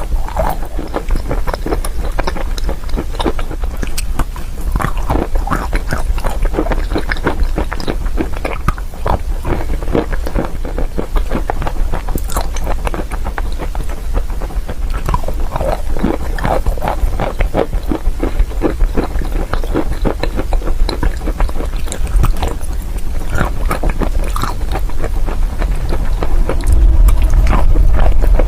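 Close-miked crunching and chewing of chalk, a dense run of crisp cracks and crackles, over a steady low rumble that grows louder near the end.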